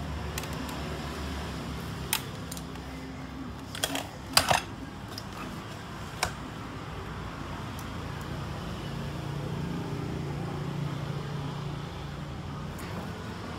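Scattered sharp clicks from tools and parts being handled while a component is checked with a hand-held tester, the loudest a short clink about four seconds in, over a steady low hum.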